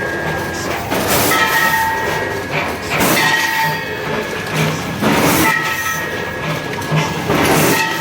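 Rotary premade-pouch packaging machine running through its cycle: a burst of hissing noise about every two seconds over steady mechanical clatter and a whining tone.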